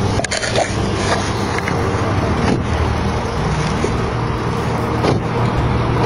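Street traffic: a steady noise of road vehicles with engines running, and a few faint knocks.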